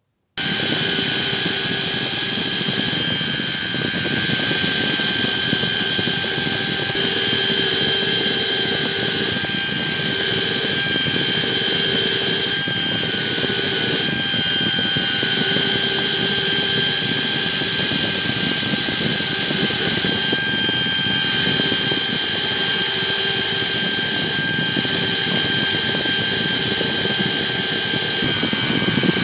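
Electric drill spinning a fine wire wheel brush against a rusty steel hook wrench to scrub off the rust. A steady high whine from the drill runs with the scratching of the brush on the metal, which comes and goes as the wrench is pressed to the wheel.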